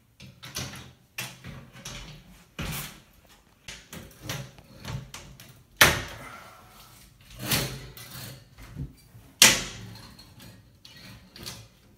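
Sliding mirror closet door being lifted and fitted into its track: a string of irregular knocks, bumps and scrapes of the door against the track, with two sharp, loud knocks about six seconds in and about nine and a half seconds in.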